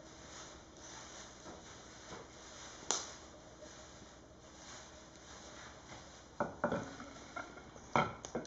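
Firewood burning in an open fireplace: a faint steady hiss, one sharp crack about three seconds in, and a quick run of louder cracks and knocks near the end.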